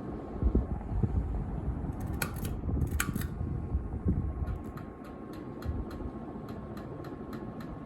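Casablanca Victorian ceiling fan with a K55 motor running with a steady hum, its out-of-balance blades giving dull knocks in the first few seconds. Sharp clicks and creaks come twice from its pull chain being pulled, then a run of light ticks about three a second.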